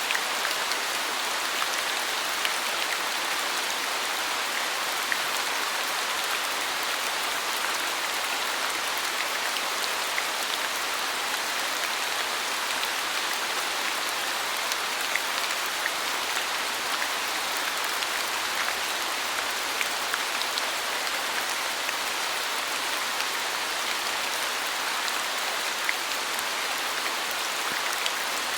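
Steady rain falling, an even hiss with scattered individual drops ticking on near surfaces.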